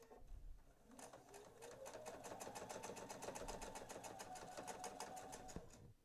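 Sewing machine stitching a dart through quilted fabric. The motor whirs up to speed about a second in, then runs steadily with a rapid, even needle rhythm and stops just before the end.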